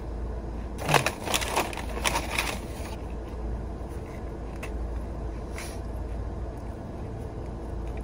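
Close-up crunching and crackling of crunchy food being chewed, a dense run of crunches for about two seconds starting about a second in, then a few faint single clicks. A low steady hum runs underneath.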